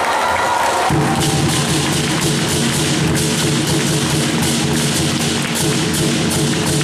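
Lion dance percussion band of big drum, cymbals and gong playing a fast, steady beat to accompany the lion. The beat grows louder and fuller about a second in.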